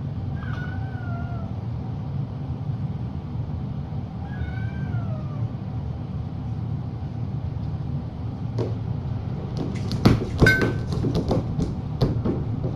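A cat meowing twice, each call falling in pitch, about four seconds apart. From about nine seconds in comes a run of clicks and knocks, loudest around ten seconds, over a steady low hum.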